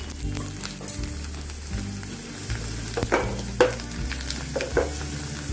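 Dried bitter gourd (karela) slices sizzling as they fry in hot mustard oil in a non-stick pan. A few sharp knocks come between about three and five seconds in as the slices are stirred.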